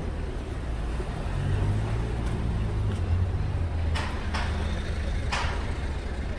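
Street traffic: a car's engine running close by as it drives past, a low hum that swells in the middle, with three short sharp clicks or taps in the second half.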